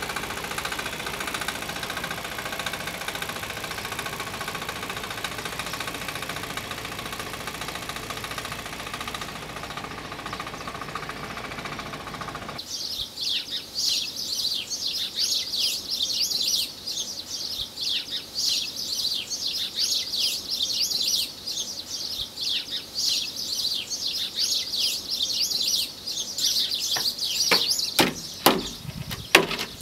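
A steady engine hum for about the first twelve seconds, then it cuts to birds chirping busily in a high register. Near the end come a few sharp knocks of a wooden board being handled.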